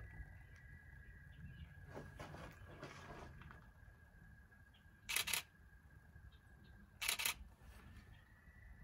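Canon digital SLR camera shutter firing twice, about five seconds in and again two seconds later, each a short sharp double click.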